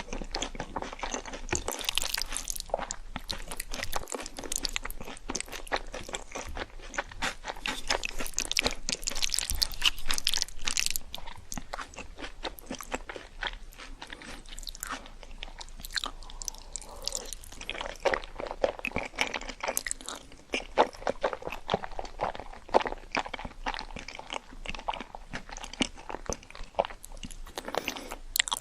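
Close-miked crunching and chewing of crisp fried food, with bite after bite of crackling crust. The crunching is densest and loudest about a third of the way in.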